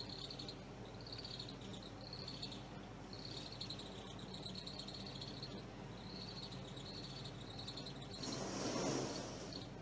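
Crickets chirping in short, uneven trills, with one longer trill around the middle, over a steady low hum. About eight seconds in there is a brief rush of noise.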